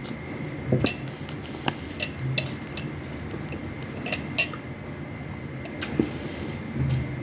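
Eating at the table: sharp, scattered clinks of cutlery against a plate, about ten in all, with a faint steady high tone underneath.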